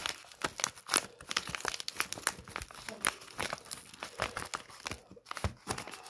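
Packaging being torn open and crinkled by hand while a delivered part is unpacked: a dense run of crackles and rips, with a brief pause about five seconds in.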